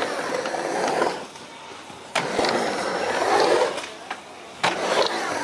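Skateboard wheels rolling on a halfpipe ramp in three passes with quieter gaps between them. Sharp clacks of the board and trucks on the ramp come about two seconds in and twice near the end.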